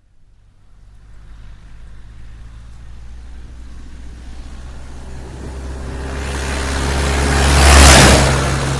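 School bus approaching and passing close by on the road: its engine hum and tyre noise build steadily and peak as it goes past near the end, then begin to fall away.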